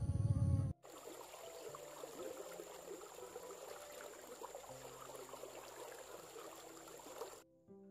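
A loud low noise cuts off abruptly under a second in. Then a shallow stream runs over stones with a steady rush of water.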